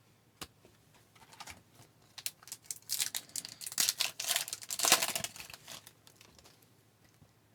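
Foil wrapper of an Upper Deck hockey card pack crinkling and tearing as it is opened, in an irregular run of crackles over a few seconds.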